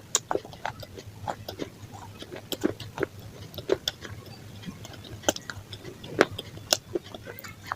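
Close-miked chewing of pizza: irregular crisp crunches and wet mouth clicks, several a second.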